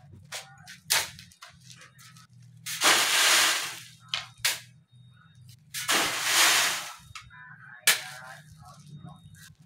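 Two shovelfuls of sand thrown onto an inclined wire-mesh sand sieve, each a hiss of sand sliding and rattling through the mesh lasting about a second, with sharp knocks of the shovel between them.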